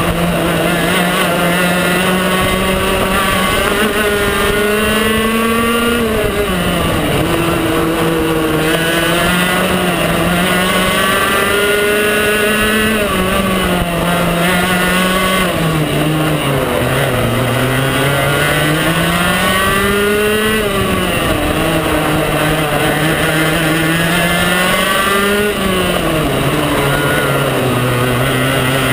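Onboard sound of a 125cc two-stroke TaG racing kart engine at race pace, its pitch climbing steadily on the straights and dropping sharply as it lifts into each corner, several times over.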